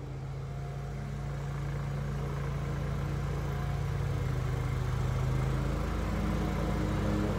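Lawn mower engine running steadily, slowly growing louder, with its pitch shifting slightly a couple of times.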